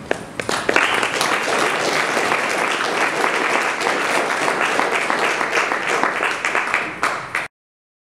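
Audience applauding, the clapping building up within the first second and then cutting off suddenly near the end.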